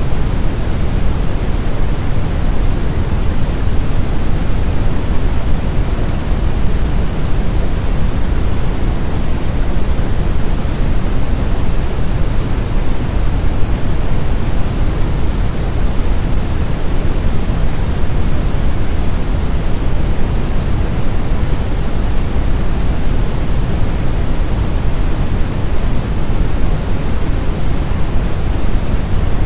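Steady brown noise: a deep, even rumble with its energy heaped in the bass and tapering toward the treble, unchanging throughout.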